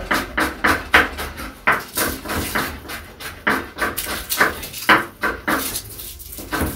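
Knife slicing vegetables on a wooden cutting board, about three rasping strokes a second, which thin out near the end.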